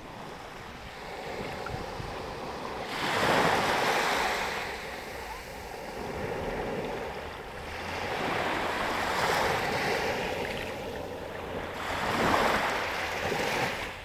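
Small waves washing up onto a sandy shore, the surf swelling and falling away three times. Wind rumbles on the microphone underneath.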